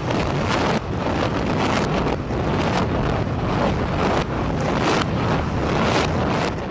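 Building demolition: a heavy rumble of a concrete building collapsing and falling debris, with many sharp cracks and crashes through it.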